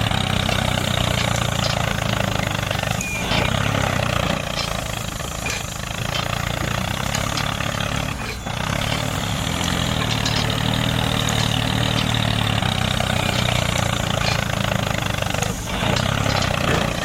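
Mini tractor engine running steadily, with a few brief dips in level.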